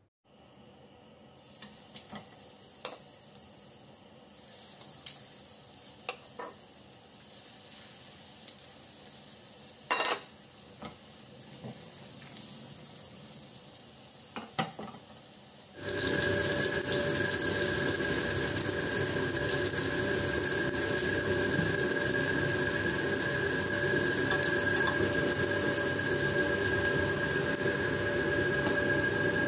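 Breaded pork chops frying in hot oil in a pan, sizzling, with scattered clicks and knocks of handling in the first half. About halfway through a much louder steady hiss with a steady hum comes in and holds.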